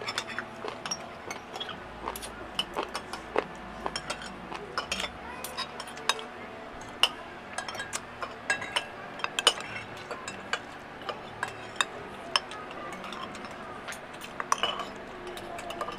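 Spoons and forks clinking and scraping on plates during a meal: many short, sharp, irregular clicks.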